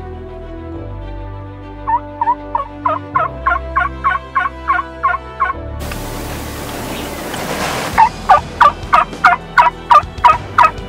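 Turkey yelping: a run of about a dozen quick yelps, each dropping in pitch, at roughly four a second, over soft background music. Near the end, a second and louder run of yelps comes over a steady outdoor hiss.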